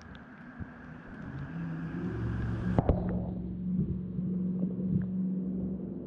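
Muffled underwater sound from a GoPro submerged in a creek: a low rumble of moving water with a steady low hum, growing louder about two seconds in. A single sharp knock comes a little before the three-second mark.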